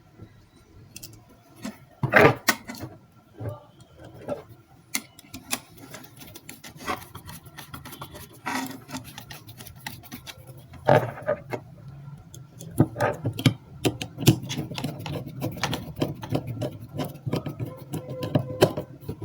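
Small clicks, taps and scraping of hand work on metal: wire ends being fastened under the two terminal screws of an electric water-heater heating element. A low steady hum comes in about two-thirds of the way through.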